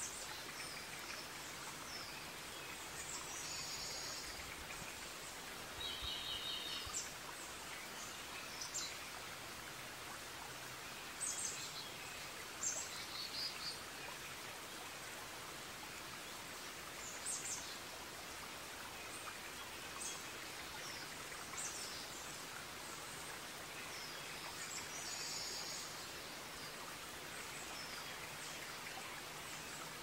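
Forest ambience: a steady hiss like running water or light rain, with birds calling at intervals, short high chirps and a few quick trills.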